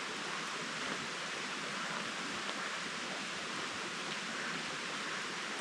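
A steady, even outdoor hiss with no distinct events.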